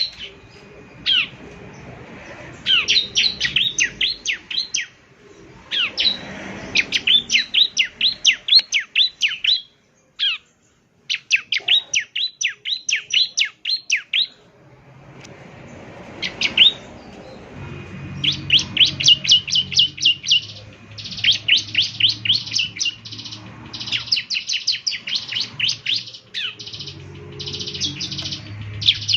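A ciblek (bar-winged prinia) sings rapid strings of sharp, high, down-slurred chips. They come in phrases of a few seconds with short pauses between them, over a faint low hum.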